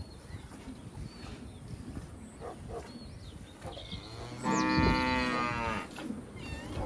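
A cow mooing once, a loud call about a second and a half long that starts a little past the middle.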